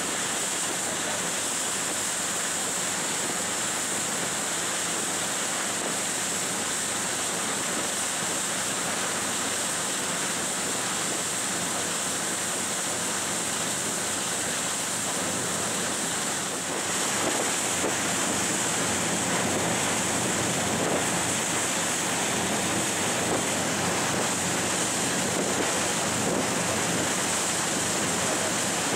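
Steady rushing of wind and water, with wind buffeting the microphone; it gets a little louder about 17 seconds in.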